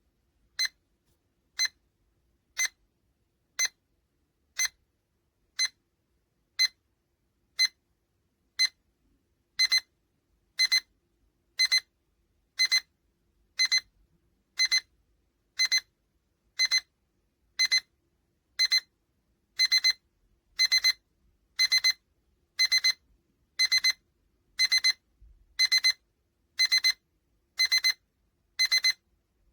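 Netzu digital alarm clock's alarm beeping in a high-pitched electronic tone about once a second. The beeps grow longer about a third of the way in, and longer again past halfway.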